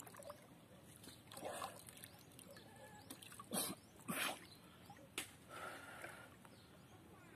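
Light water splashing and sloshing around a man wading chest-deep and handling a mesh fish-pen net: a handful of short separate splashes, with one sharp knock about five seconds in.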